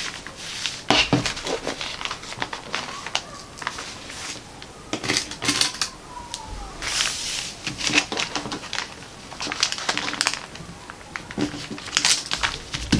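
Paper pattern sheet and carbon paper rustling and crinkling as they are pinned to fabric, with scattered light clicks and taps from the pins and handling.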